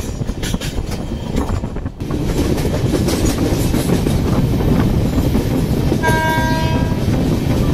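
Passenger train running along the track, a steady rumble and rattle of the coaches that gets louder about two seconds in. Near the end the locomotive's horn sounds once for about a second.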